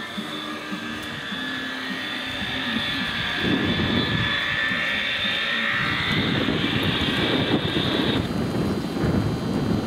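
A steady high whine that cuts off suddenly about eight seconds in, over a fluttering rumble of wind on the microphone.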